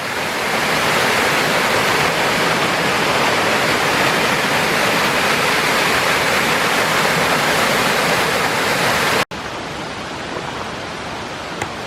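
Small waterfall on a creek, rushing steadily with loud, even white-noise-like falling water. About nine seconds in it breaks off abruptly and carries on as a quieter rush of water.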